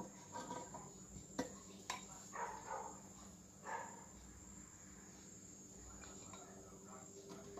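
Ladle clinking against a bowl and metal roasting pan as sauce is basted over a baked whole chicken, with two sharp clicks about a second and a half and two seconds in. A steady high-pitched whine and a low hum run underneath.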